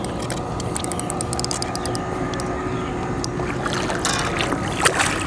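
Steady noise aboard a small fishing boat with a faint steady hum, scattered light clicks and a sharper splash-like hit near the end, as a hooked bass is brought in.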